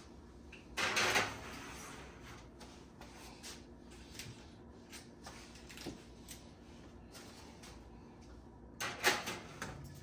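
Metal cake pans set onto an electric oven's wire racks: a scraping clatter about a second in, light clicks and knocks, and a second clatter near the end as another pan goes in.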